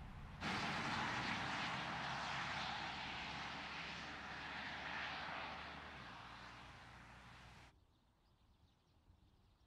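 Car going by on a country road: a steady rush of tyre and wind noise with a faint low hum, starting suddenly about half a second in, slowly fading as it drives away, and cutting off abruptly near the end.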